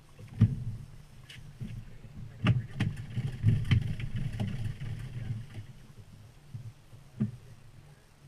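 Small outboard motor running steadily at low speed, with several sharp knocks and thumps on top. The loudest knock comes about half a second in, a cluster follows from about two and a half to four seconds in, and a last one comes near the end.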